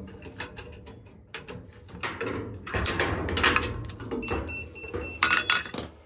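Irregular clicks, snips and rattles of hand tools and wiring: side cutters snipping the ground wires at a burnt-out light switch and the switch being worked loose, over a faint steady hum.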